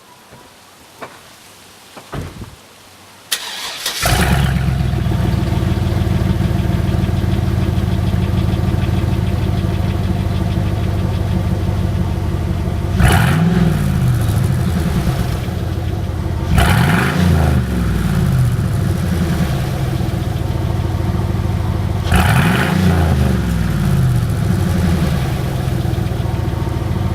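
A few light clicks, then a 2001 Chevy Suburban 2500's 8.1-litre Vortec big-block V8 cranks and starts about four seconds in. It idles with no muffler, only the two stock pipes through the catalytic converters, hilariously loud, and is revved three times.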